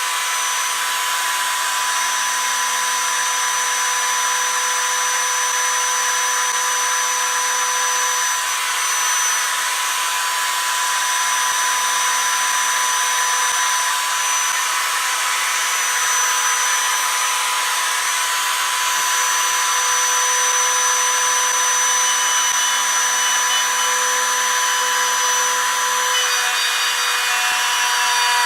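1954 Rockwell/Beaver 8-inch table saw running steadily, its blade making passes through half-inch MDF to cut a shallow dado, with a constant motor whine under the cutting noise.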